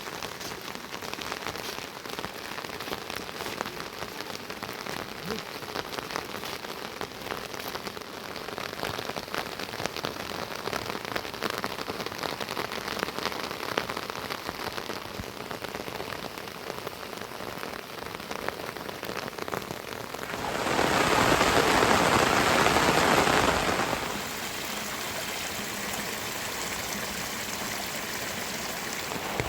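Heavy rain falling, a dense patter of drops. About two-thirds of the way through, it swells into a louder, denser rush for about three seconds, then settles back to a steady hiss.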